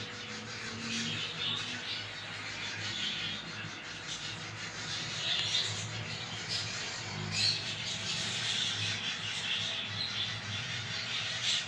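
Steady background hiss with a faint low hum and scattered faint chirps.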